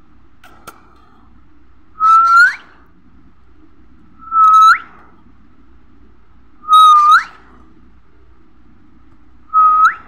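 Baby parakeet calling four times, about two and a half seconds apart. Each call is a shrill held note that sweeps sharply upward at its end. These are a hand-fed chick's food-begging calls at the feeding spoon.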